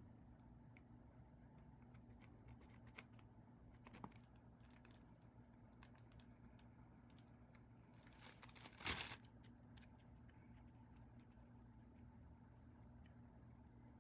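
Handling noises from work at a bench: scattered faint clicks, and a brief louder scratchy rustle about eight seconds in, over a steady low electrical hum.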